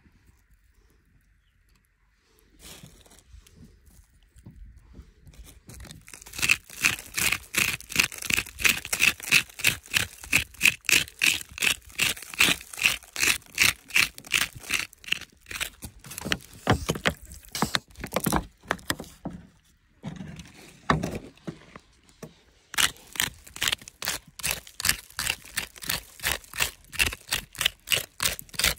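Metal hand tool chipping and scraping into dry, hard-packed soil in quick, even strikes, several a second, with a faint metallic ring. It starts a few seconds in, pauses briefly about two-thirds of the way through and then resumes.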